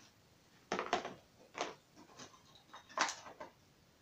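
A few short knocks and clatters of objects being handled: a pair about a second in, another soon after, and the loudest about three seconds in.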